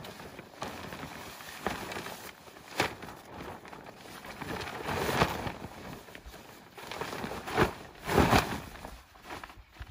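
A large grey awning sheet rustling and flapping as it is held up, shaken out and folded by hand, in irregular bursts, the loudest about eight seconds in.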